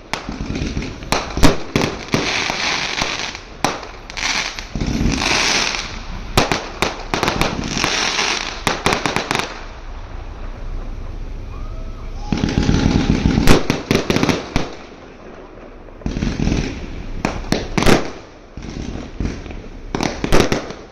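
Fireworks going off: sharp bangs in quick succession and long bursts of crackling, with short lulls about ten and fifteen seconds in.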